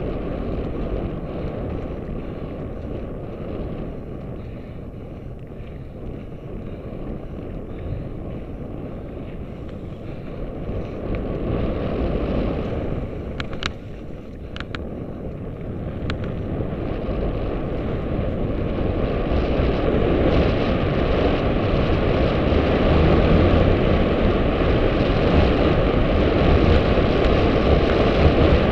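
Wind rushing over the microphone of a mountain bike's on-board camera, with the rumble of tyres on a dirt trail, and a few sharp clicks about halfway through. The rush grows louder over the last third.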